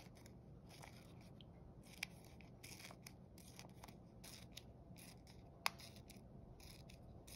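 Scissors snipping folded paper in a run of small, quick cuts, faint, with a sharper click about two seconds in and another near six seconds.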